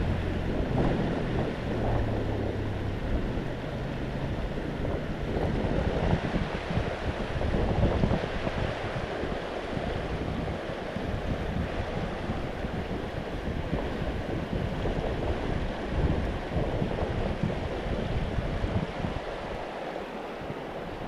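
Steady rush of a flowing trout river, with wind buffeting the microphone as a low rumble in the first few seconds.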